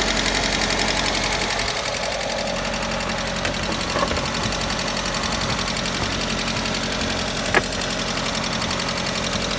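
Car engine idling with a fast, even ticking from the hydraulic valve lifters, a lifter knock that is there both cold and hot. One sharp click stands out about three quarters of the way through.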